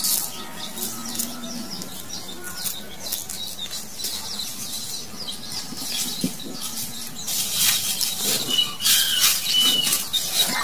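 Fingers rubbing and swishing in a small glass bowl of warm salt water, with many small wet splashes and drips, busier near the end.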